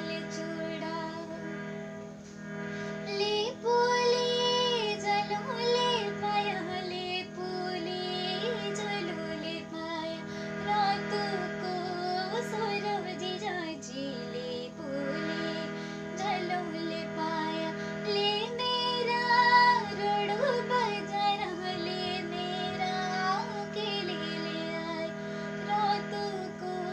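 A young woman singing a Jaunsari folk song solo, in long ornamented melodic phrases with sliding pitch. A steady held backing tone sounds underneath.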